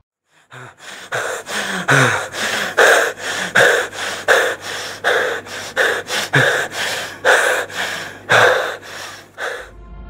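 A person panting hard after running, with deep rasping breaths in and out at about one and a half a second. The breathing stops near the end.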